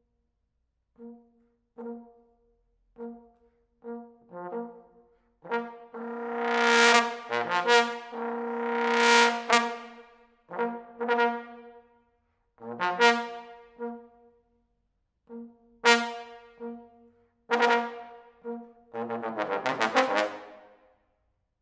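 Solo trombone playing contemporary music. Short detached notes on one low pitch are repeated about once a second, then swell into loud, bright held notes. Accented notes follow, with a fast flurry of notes near the end.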